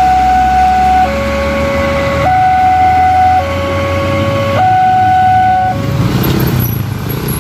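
Railway level-crossing warning alarm sounding a two-tone hi-lo signal, each tone held about a second, warning of an approaching train. It stops about three-quarters of the way through as low engine noise from road traffic rises.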